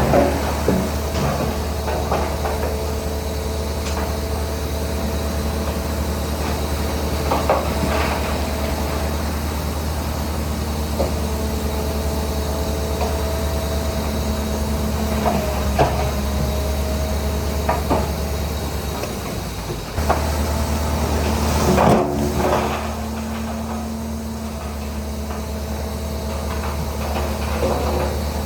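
Heavy earthmoving machinery at work: a diesel engine runs steadily under a low hum, with intermittent metallic clanks and knocks. A louder clank comes about three-quarters of the way through.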